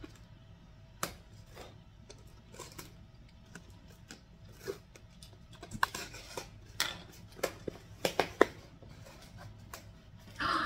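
Packing tape on a cardboard shipping tube being slit with a small handheld cutter, with scattered clicks, scrapes and crinkles of tape and cardboard, busiest in the middle and later part.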